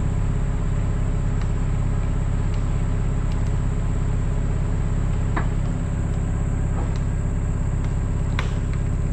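Engine running steadily at a constant speed, a low drone, with a couple of sharp cracks about halfway through and near the end.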